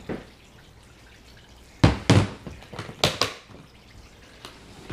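Hard plastic carrying cases being handled and set down on a countertop: a few sharp knocks and clunks, two close together about two seconds in and two more about three seconds in.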